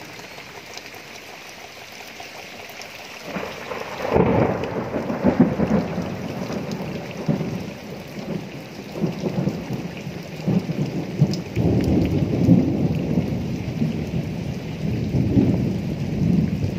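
Rainstorm: rain falling steadily. About four seconds in, a louder, uneven low rumble joins it, swelling and ebbing in surges.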